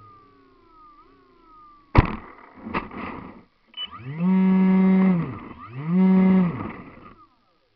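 Onboard sound of an R/C model aircraft coming down in the snow: a sharp knock about two seconds in as it touches down, then a couple of smaller knocks. After that the motor is run up and back down twice, in blips of about a second each.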